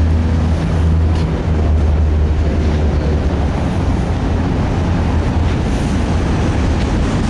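Freight train passing: a diesel engine's low steady drone for the first few seconds, fading into the even rumble of the rolling train, with wind on the microphone.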